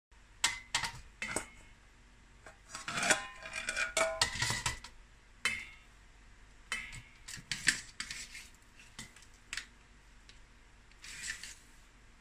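Kitchen clatter: a slotted metal spatula and a boiled crab's shell knocking and scraping against a cooking pot and a stainless steel plate. It is a string of clinks, some ringing briefly, busiest in the middle and thinning out towards the end.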